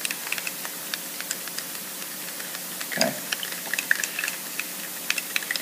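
Mixing stick scraping and tapping around the inside of a small cup as two-part urethane casting resin is stirred, making a scatter of light, irregular clicks over a faint steady hiss.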